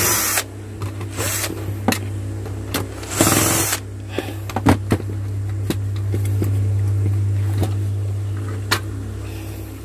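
Cordless drill/driver spinning in short bursts to back out the screws of a plastic drill housing, the longest burst about three seconds in. Sharp clicks and knocks of the plastic shell being handled and pried open follow, over a steady low hum.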